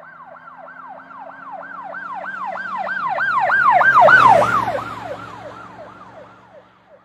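Emergency vehicle siren in a fast yelp, about three rise-and-fall cycles a second, growing louder to a peak about four seconds in and then fading away. Its pitch drops as it goes past.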